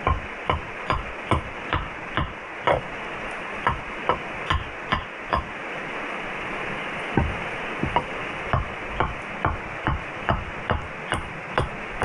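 Background music with a steady ticking beat, about two ticks a second, over a steady hiss-like bed; the beat drops out briefly in the middle, then returns.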